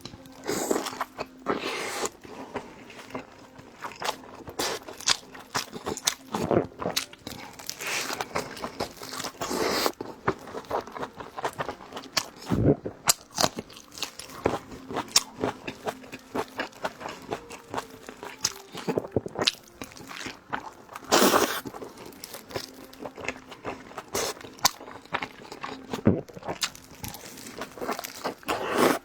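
Close-miked eating: a person biting into and chewing big steamed dumplings, with irregular moist clicks and crunchy bites that come in a loose rhythm, a couple of them louder than the rest.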